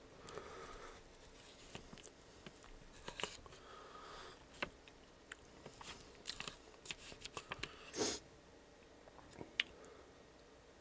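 Close-miked eating sounds: soft wet chewing and mouth noises, with scattered sharp clicks of a knife and fork cutting through chicken enchiladas in a foil tray. One louder sound comes about eight seconds in.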